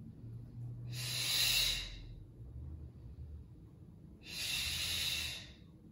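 A woman breathing hard with exertion while holding a single-leg glute bridge: two long, airy breaths about three seconds apart.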